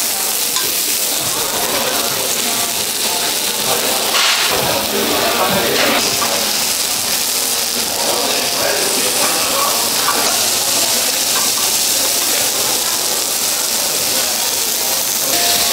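Pork belly sizzling steadily on a hot cast-iron pot-lid grill, with a few metal clinks from the tongs and scissors against the grill about four to six seconds in as the meat is turned and cut.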